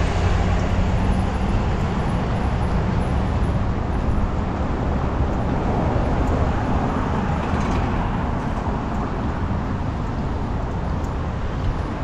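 Steady road rumble and traffic noise from a bicycle rolling along a city street, with cars running nearby; a low engine hum stands out in the first second or so.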